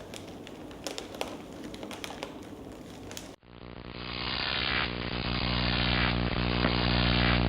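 Crackling with scattered sharp clicks, which cuts off suddenly a little over three seconds in. It gives way to a steady low droning hum made of many layered tones, which swells up over a second or so and then holds.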